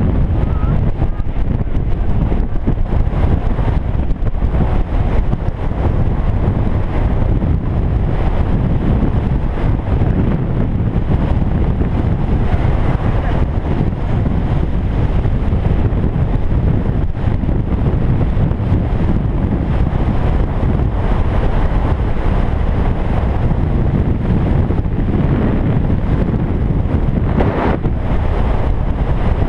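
Wind buffeting the microphone of a handlebar-mounted action camera on a bicycle coasting fast downhill: a steady, loud, low rumble.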